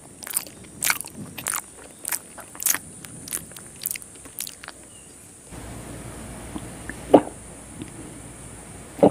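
Close-up chewing of rice and egg curry, with wet mouth clicks about twice a second. About five and a half seconds in the background noise steps up, followed by two gulps as water is drunk from a plastic bottle.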